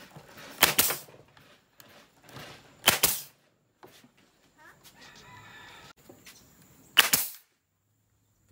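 Brad nailer firing three times, driving brads into a pine shelf frame: each shot is a sharp crack with a short tail, the shots about two and four seconds apart.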